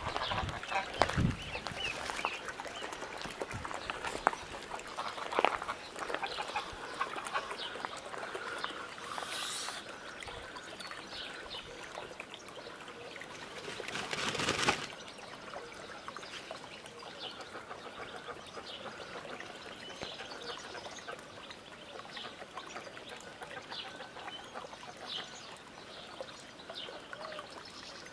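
Domestic geese calling over a brood of goslings, with a goose beating its wings in a brief rushing burst about fourteen seconds in; short high gosling peeps come through the later part.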